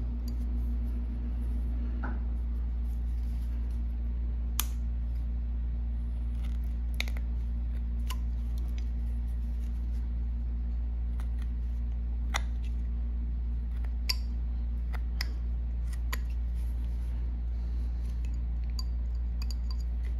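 Small carving knife cutting fine chips from a wooden carving blank: sharp, irregular snicks of the blade through the wood a second or two apart, over a steady low hum.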